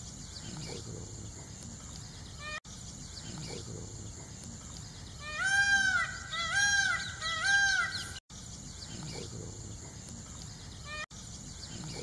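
Indian peafowl (peacock) giving three loud calls in quick succession about halfway in, each call rising then falling in pitch, over a steady background hiss.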